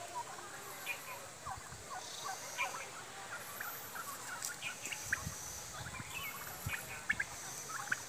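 A flock of domestic turkeys calling as they forage: many short, overlapping clucks and calls scattered throughout.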